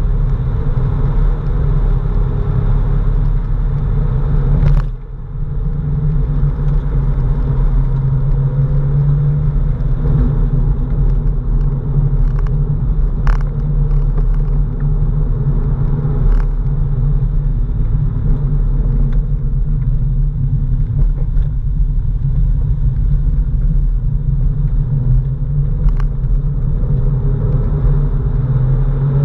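Porsche 997's flat-six engine running steadily as the car drives, with a brief drop in level about five seconds in and a few sharp ticks later on.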